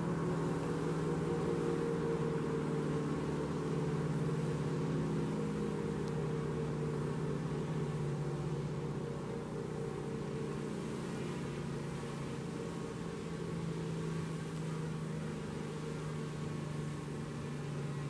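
Steady hum of a hovering drone's propellers, several close pitches wavering slightly, getting a little quieter over the stretch.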